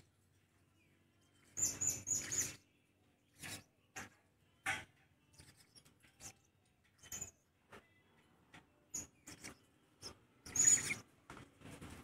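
Blue-crowned hanging parrots giving short, high-pitched calls at irregular intervals, with a quick run of three about two seconds in and the loudest call near the end.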